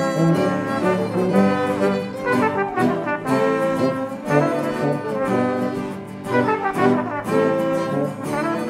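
Small live ensemble of flute, violins, a brass horn, accordion and acoustic guitars playing a tune together, the melody moving in phrases of held notes.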